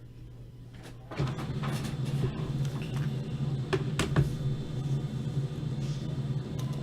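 A printer starting up about a second in and printing a page: a steady mechanical hum with a few sharp clicks as the paper feeds.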